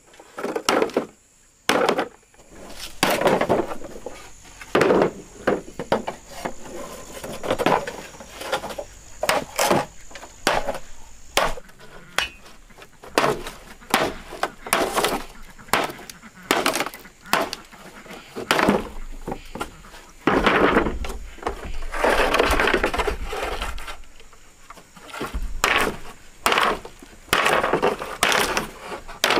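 Irregular series of sharp knocks and cracks, with a longer stretch of scraping or rustling noise in the second half.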